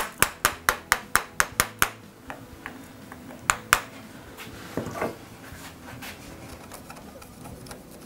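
Wooden mallet tapping a thin chisel into softwood pine to chop out the waste of a groove: a quick run of about nine sharp taps, some four or five a second, then two more about three and a half seconds in. After that, only faint sounds of the chisel being worked by hand.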